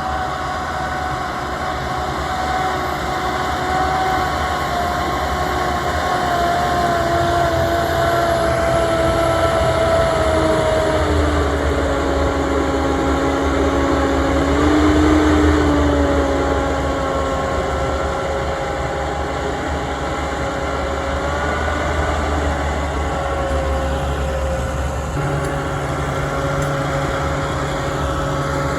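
Tractor diesel engine running steadily while ploughing, its pitch sliding down about eight seconds in and then holding level.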